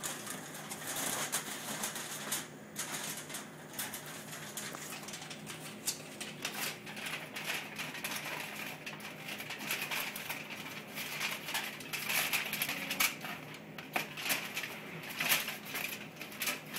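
Aluminium foil crinkling and crackling as hands fold and roll it into a sealed packet, an irregular run of crisp rustles that grows busier near the end.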